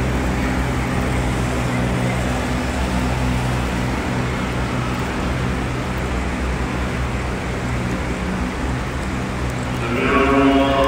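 Steady rushing noise of rain and wind on a phone's microphone, with a low rumble underneath. A voice begins near the end.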